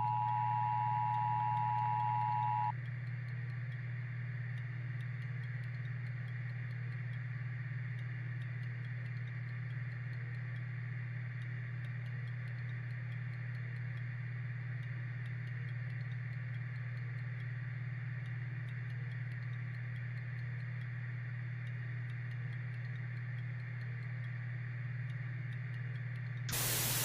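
Emergency Alert System two-tone attention signal, a steady dual tone that cuts off sharply a few seconds in. After it comes a steady low hum with faint, regular ticking. Near the end there is a brief loud burst of static-like hiss.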